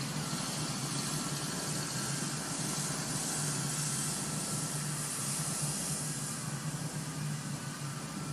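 Steady outdoor background noise: an even hiss, a little stronger in the middle, over a constant low hum.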